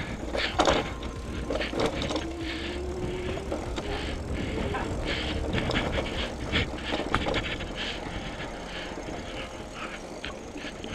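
Velotric Summit One e-bike clattering over a rocky trail, with irregular knocks and rattles as the wheels and frame hit rocks, over a steady low rumble of riding.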